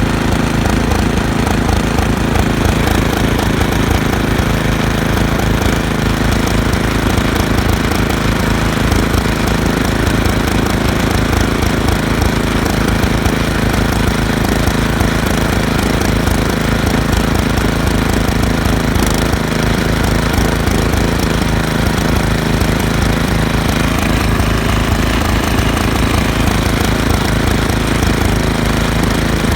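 Toro 826 OE snowblower's single-cylinder engine running steadily at a fast, even beat, in a machine whose impeller belt won't spin the impeller.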